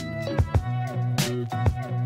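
Background music with a steady beat: a bass line, pitched instrument notes and drum hits.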